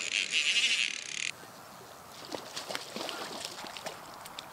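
Fly reel's drag buzzing as a hooked trout pulls line off, stopping sharply just over a second in. After that come scattered faint ticks and small splashes.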